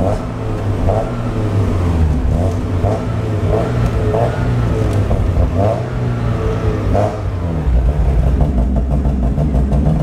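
1991 Mazda Miata's 1.6-litre four-cylinder engine running while driving, heard from the open cockpit, its note changing about three-quarters of the way through. The engine is stumbling as the loose ECU glitches out and makes it misfire.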